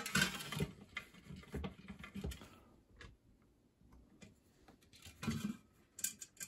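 Light, irregular clicks and rustles of small parts being handled as a toaster's switch and its tiny screws are fitted back into the aluminium end casting. The clicks are busiest in the first couple of seconds, then thin out.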